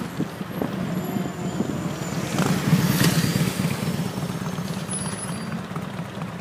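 Road vehicle engines idling at a traffic light. The engine sound swells to its loudest about halfway through as a motorcycle pulls up close alongside, then eases back.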